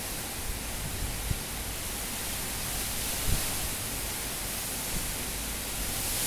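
Cyclone-force wind blowing steadily with a rushing hiss, a few faint low thumps of buffeting in it, and the wind building towards a gust near the end.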